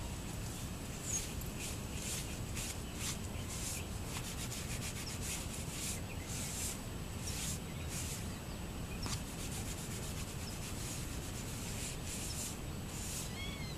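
Irregular short scraping and rustling strokes over a steady low rumble, with a cat's faint chirping call near the end.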